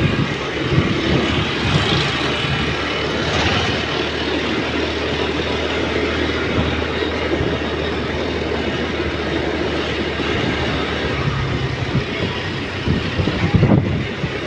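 Wind rushing over the microphone with a scooter's engine running underneath while riding along a street; a louder gust of wind noise near the end.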